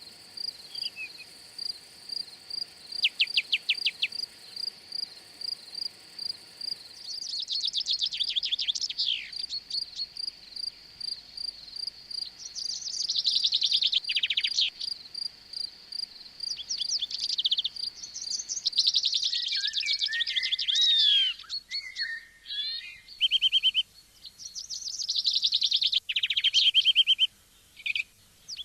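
Songbirds singing in repeated bursts of fast trills and short phrases, over a cricket chirping steadily about twice a second that stops about two-thirds of the way through.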